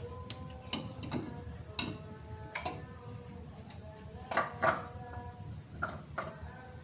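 Scattered metal clinks and knocks while a new oil filter is fitted by hand onto a Mitsubishi Pajero Sport diesel engine. The sharpest knock comes about two seconds in and two more close together past the middle.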